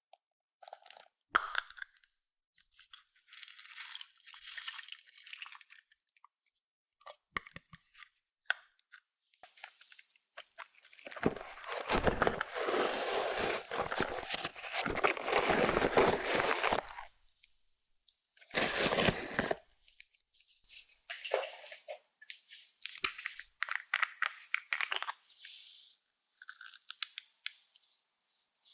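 Clear slime being worked by hand, crackling and popping in irregular bursts with quiet gaps between them. The longest and loudest run of crackling falls in the middle, with a short burst soon after.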